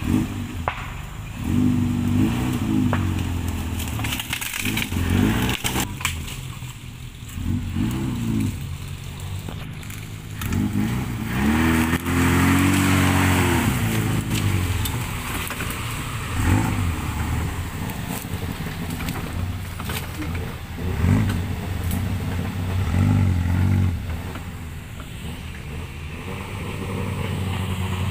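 Suzuki off-road 4x4's engine revving up and down under load as it crawls through mud, in repeated surges of one to four seconds each, settling to a steadier run near the end.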